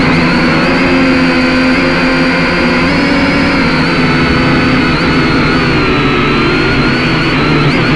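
Small drone's electric motors and propellers whining steadily, several pitches at once that shift slightly as it adjusts its flight, dipping a few seconds in and rising again near the end. Heard close up through the drone's own camera microphone.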